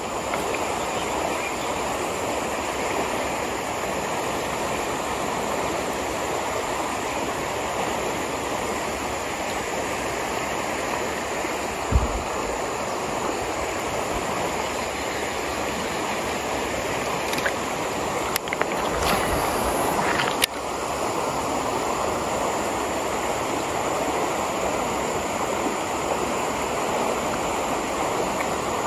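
Fast-flowing river water rushing steadily. There is a brief low thump a little before the middle and a few short clicks about two-thirds of the way through.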